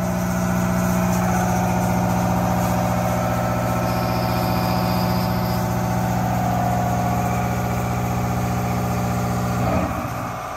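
CNC vertical machining centre running while its spindle mills a steel punch blank: a steady mechanical drone with a fainter higher whine over it, shifting briefly near the end.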